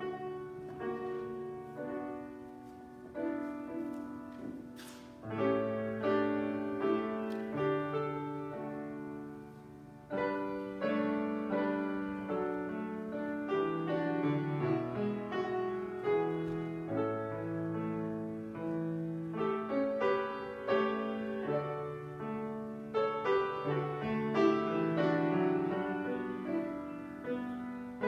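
Slow piano music in held chords with a moving melody line: the prelude opening the worship service.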